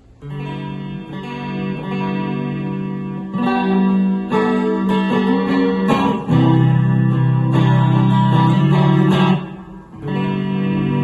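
Electric guitar played through a Fender Mustang I modelling amp: a series of chords ring out and change every second or two, the sound drops out briefly about nine and a half seconds in, then resumes.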